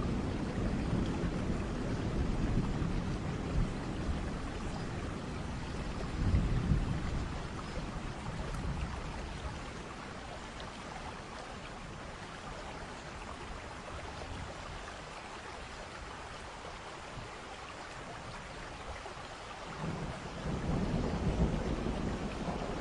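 Thunder from a thunderstorm rumbling low and long, swelling about six seconds in, fading through the middle and building again near the end, over a steady hiss.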